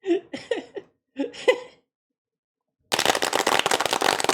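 Two short bursts of voice, then about three seconds in a homemade applause track starts abruptly: many layered recordings of hand clapping overlapping into a dense, continuous patter.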